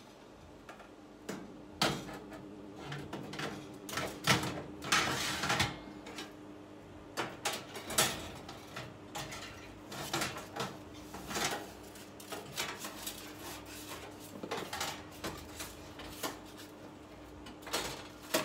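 Metal oven racks and a baking tray being fitted into a new stove's oven, clattering and scraping: a string of irregular clanks and knocks, with a faint steady hum underneath.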